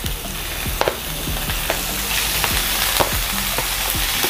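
Minced chicken breast sizzling in hot oil as it is scraped into a frying pan, the sizzle growing stronger about halfway through. Short sharp clicks of wooden chopsticks tapping the plastic container come at irregular intervals.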